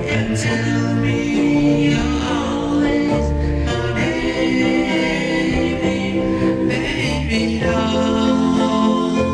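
Doo-wop vocal group singing held close harmonies over a band backing, with a steady bass line.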